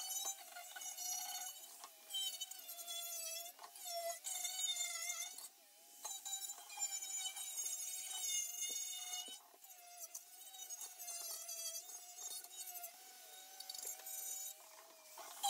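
A small high-speed electric tool motor whining, its pitch wavering and dipping briefly as it is pressed into work and recovering between passes.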